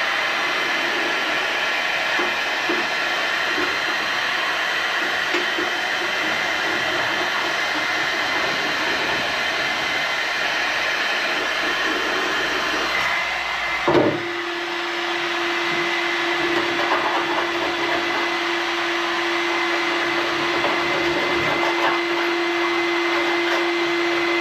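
A handheld electric power tool running steadily while stripping a car door panel back to bare metal. About halfway through there is a brief knock, and the tool settles into a steadier, even hum.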